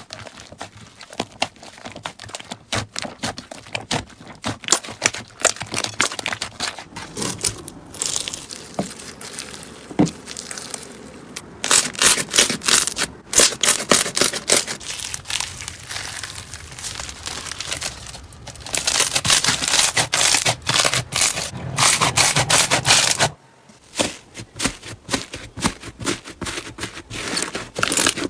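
Slime being squeezed, poked and stretched by hand, with dense crackling and popping clicks. It comes in several back-to-back stretches that change abruptly, with a brief quieter gap about 23 seconds in.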